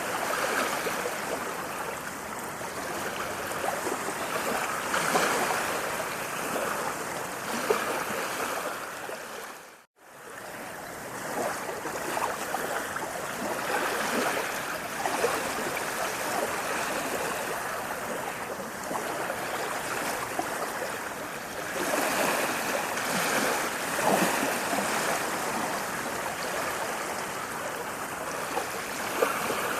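Running water rushing steadily, with small surges. About ten seconds in it fades almost to silence for a moment, then comes straight back.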